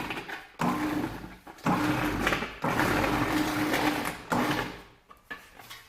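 Sheet metal crimping machine running in four short runs, its motor humming steadily as the crimping wheels roll a crimp into the edge of a duct segment.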